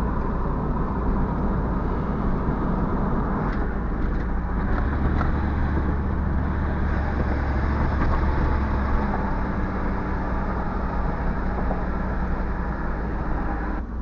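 Engine and road noise heard from inside a car's cabin while driving: a steady low drone, stronger for a few seconds in the middle, with abrupt changes where the recording cuts.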